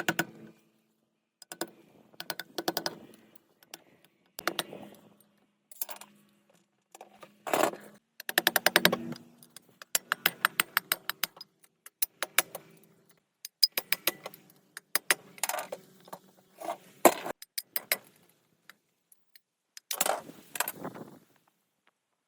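Hand tools working on the metal parts of an old high pressure pump: bursts of rapid metallic clicking and rattling, some in fast runs of clicks, with short pauses between.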